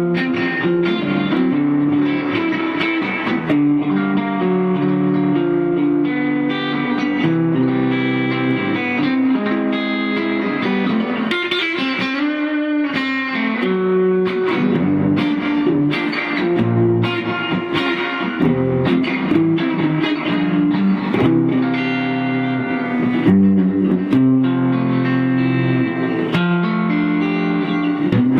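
Rickenbacker-style electric guitar played through an amplifier, a continuous run of chords and single-note lines with frequent chord changes.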